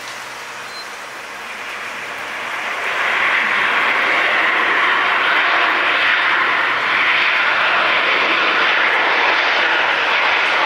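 Boeing 737 jet engines in reverse thrust during the landing roll on a wet runway. A rushing jet roar swells about two to three seconds in, as the reversers deploy and the engines spool up, then holds steady.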